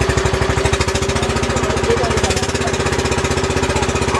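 Outrigger boat's engine running steadily underway, with a rapid, even chugging beat.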